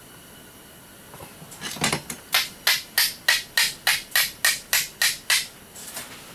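Hammer blows in a steady run, about three a second and around a dozen in all, following a few lighter taps. The blows are knocking parts loose while a scrapped reciprocating saw is being taken apart.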